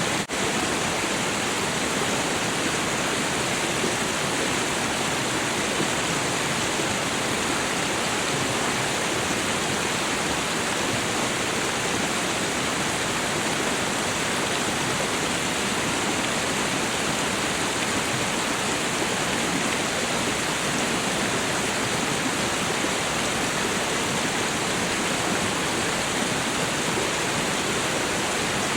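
Waterfall rushing in a steady, unbroken roar of falling water, with a momentary dip just after the start.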